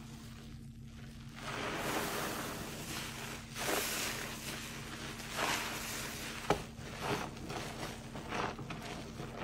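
A large sponge squeezed and pressed by rubber-gloved hands in thick laundry-detergent suds: wet squishing and crackling foam that begins about a second and a half in and comes in repeated swells as the sponge is worked.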